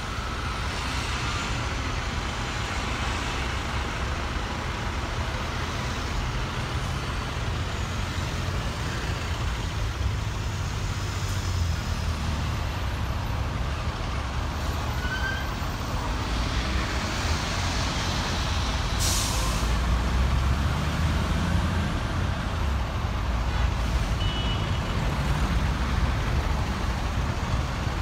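Diesel buses and cars idling and creeping through queued traffic: a steady low engine rumble, with a short hiss of a bus's air brakes about two-thirds of the way through.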